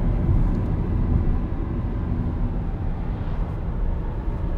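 Steady low rumble of road and engine noise inside a car cruising at highway speed, about 90 km/h.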